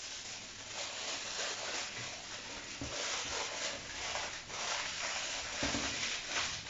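Aluminium foil crinkling and rustling in irregular crackles as hands wrap and press it around the ends of a rolled pork roast.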